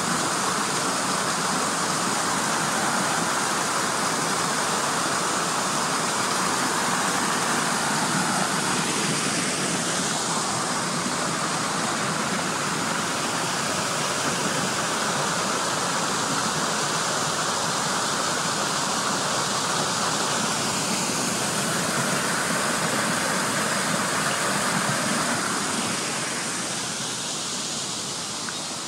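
Steady rush of flowing water from a waterfall and creek, growing a little quieter in the last few seconds.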